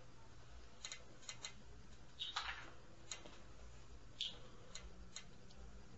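Faint, irregular sharp clicks and taps, about eight of them, the loudest two about two and four seconds in, over a low steady hum.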